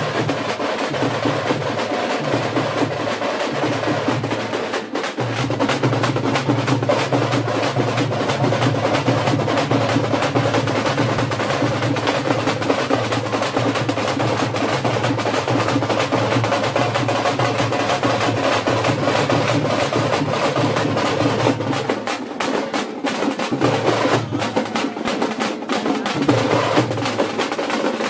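A troupe of thamate frame drums, beaten with sticks, plays a fast, loud, driving rhythm in unison, with barrel drums sounding beneath them.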